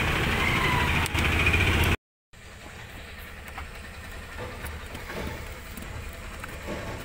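Traffic and vehicle engine noise for about two seconds, then it cuts off suddenly. After that comes a much quieter steady background with a few light clicks.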